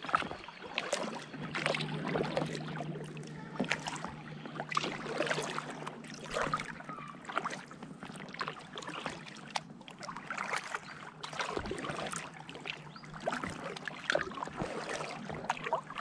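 Kayak paddle strokes: the paddle blades dipping and pulling through calm river water, with splashes and drips off the blades in an uneven rhythm of roughly one stroke a second.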